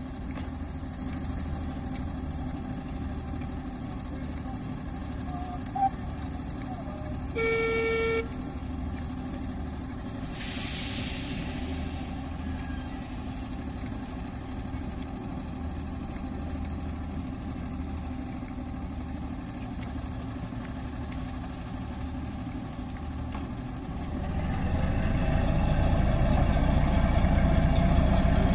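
Class 08 diesel shunter's English Electric six-cylinder engine running with a steady low throb as it hauls coaches. Its horn sounds once, briefly, about a third of the way through, and the engine grows louder near the end as the locomotive draws closer.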